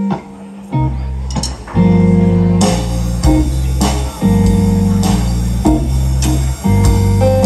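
Live band playing an instrumental blues-rock groove: electric bass and electric guitar riffing, with drums and cymbals coming in about two and a half seconds in.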